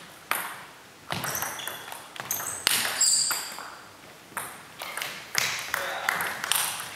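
Table tennis rally: the celluloid ball clicks sharply off the paddles and the table in an irregular string of hits, each with a short echo from the large hall.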